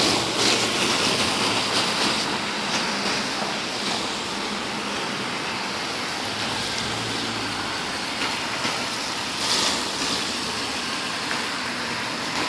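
City traffic noise: a steady wash of car engines and tyres on the street, with a few brief louder swells of passing vehicles.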